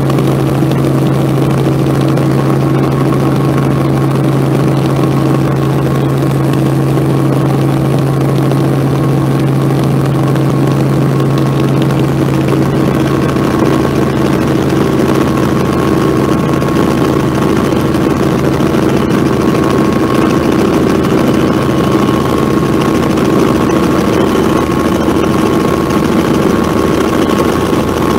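Robinson R44 helicopter in flight, heard from inside the cabin: the steady drone of its six-cylinder piston engine and rotors, with a strong low hum that weakens a few seconds before the end.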